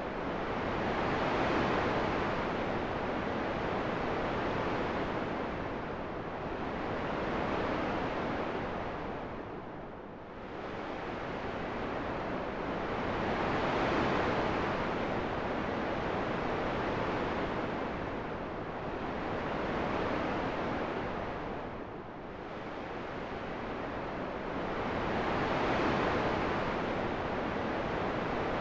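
Steady rushing wind noise that swells and eases in slow, even waves, dipping lowest about every twelve seconds.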